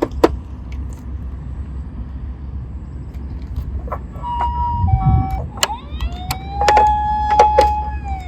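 Emergency-vehicle siren over a steady low engine rumble, with scattered sharp clicks. About four seconds in comes a brief high-then-low two-tone. Around six seconds a wailing tone rises, holds, and begins to fall near the end.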